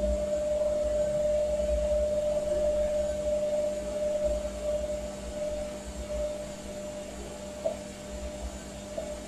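Hotpoint Ariston Aqualtis front-loading washing machine running its wool programme with water in the drum: a steady mechanical hum over an uneven low rumble, easing off a little about halfway through.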